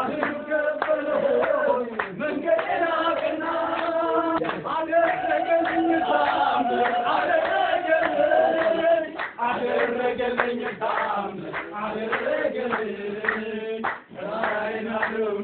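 Several voices singing together with hand-clapping.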